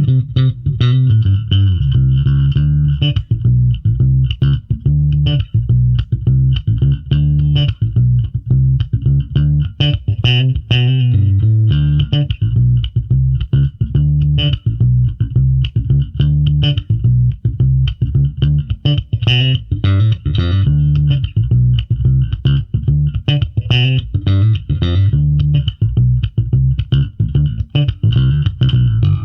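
Five-string electric bass guitar with Delano JSBC 5 HE pickups and a Delano Sonar3 preamp, played unaccompanied in a busy line of quick plucked notes. The notes are deep, with a bright edge to each attack.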